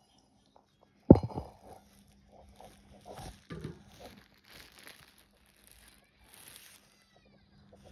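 Plastic wrap crinkling and rustling as it is handled close to the microphone, in irregular crackly bursts. A sharp knock about a second in is the loudest sound.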